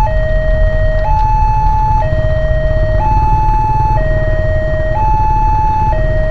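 Railway level-crossing warning alarm sounding its electronic two-tone signal, alternating a lower and a higher tone about once a second, which warns that a train is approaching. A low rumble of waiting motorcycle traffic lies underneath.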